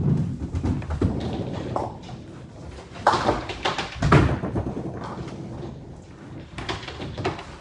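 Ninepin bowling alley: heavy balls rumbling along the lanes and knocking into pins, with loud clattering knocks about three and four seconds in and smaller knocks near the end.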